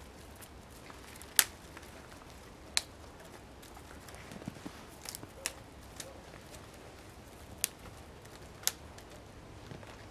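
Thin dry twigs being snapped off a snow-covered tree by hand: about half a dozen sharp cracks spaced out over several seconds. The loudest comes about one and a half seconds in.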